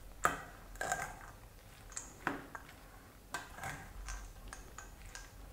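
A metal spoon stirring a mayonnaise-dressed salad in a metal mixing bowl, with light clinks and scrapes of the spoon against the bowl at irregular intervals.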